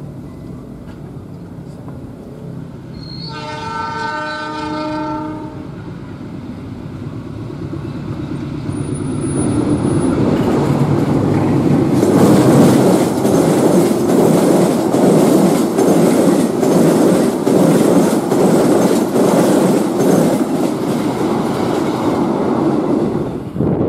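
Diesel locomotive horn sounding once for about two seconds, a few seconds in. Then a locomotive-hauled passenger train passes at speed: a loud rush with wheels clacking rapidly over rail joints, starting about twelve seconds in and cutting off near the end.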